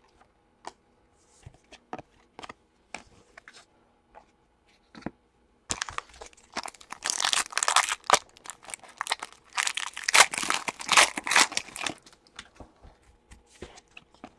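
Foil wrapper of a Prizm basketball card pack being torn open and crumpled: about six seconds of loud, dense crinkling in the middle, with soft clicks of cards being handled before and after.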